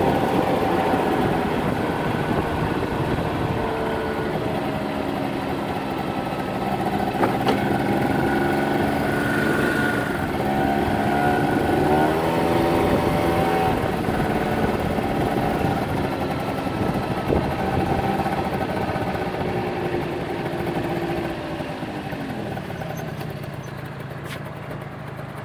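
Honda Elite scooter's small engine running while riding, its pitch rising and falling with the throttle, over steady wind noise. The engine note climbs about halfway through and drops away near the end as it slows.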